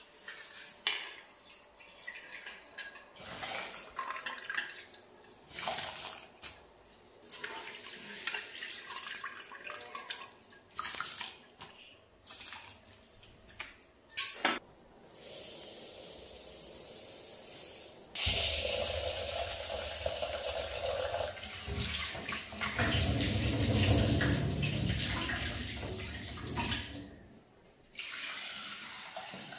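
Water sloshing and splashing as a hand works rice in water in an aluminium pot, with pots knocking now and then. Past the middle a tap runs loudly and steadily for several seconds, and near the end water is poured from a steel vessel into a steel pot.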